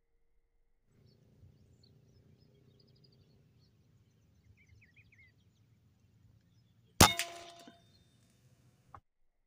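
PCP air rifle fires once about seven seconds in: a sharp crack followed by a metallic ring that fades within about a second. Before it, faint bird chirps over a low outdoor background.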